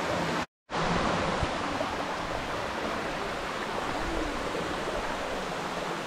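Steady rush of falling water from the Dimossari waterfall, broken once by a brief dropout about half a second in.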